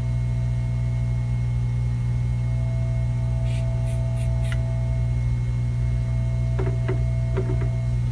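Steady low electrical hum, with a faint higher whine joining about two seconds in and a few soft ticks and taps in the middle and near the end.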